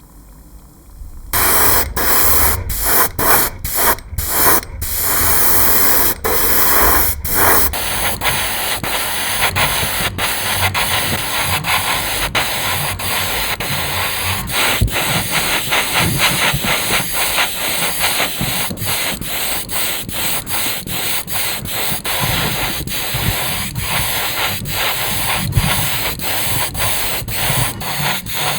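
Power sanding on the car's bodywork: a loud, harsh abrasive noise that starts about a second in and keeps breaking off for brief moments, with a steady high whine joining it about eight seconds in.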